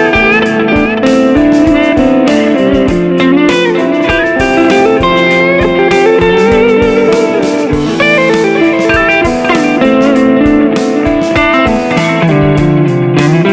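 Instrumental background music led by an electric guitar playing a melody with bent notes over a steady beat.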